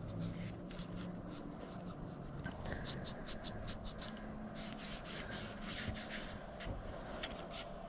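Scratchy rubbing and scrubbing on the metal parts of a Ruger LCP Max pistol being cleaned by hand. It comes as quick runs of short strokes, thickest in the middle and thinning toward the end.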